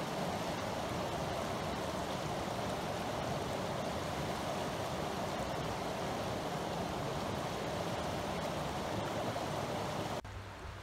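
Creek water rushing over rocks in a steady, even rush, cutting off suddenly near the end.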